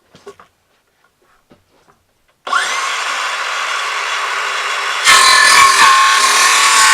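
A power saw switches on about two and a half seconds in, its motor whine rising as it spins up, then runs steadily; at about five seconds it gets louder as it cuts into wood, its pitch wavering and dipping under the load.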